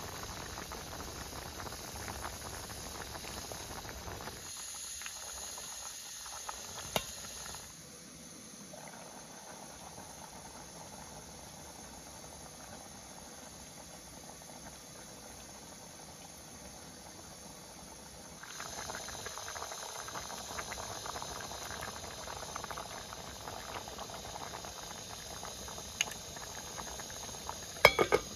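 A pot of vegetable stew simmering on a small burner, with a steady bubbling hiss. There are a few sharp clicks of utensil on enamel, and near the end an enamel lid is set on the pot with a clack.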